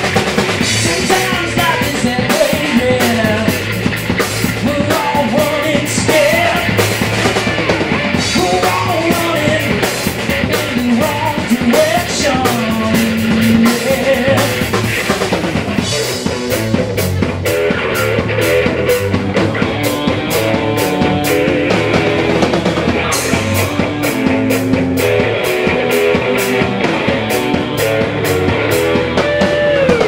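Live rock band playing: electric guitars, bass and a drum kit with a sung vocal line, loud and continuous.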